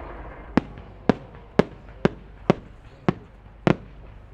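Seven sharp cracks, about one every half second, from the small bursting attachments (kyokudō) on a 10-gō (30 cm) fireworks shell as it climbs after launch.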